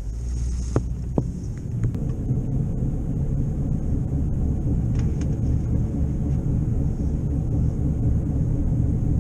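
2011 Chevrolet Malibu pulling away and rolling slowly at about 15 mph, a low rumble building as it gets moving, with two sharp clicks about a second in. The rumble carries the faint drone of a bad wheel bearing, which the owner puts down to the left wheel.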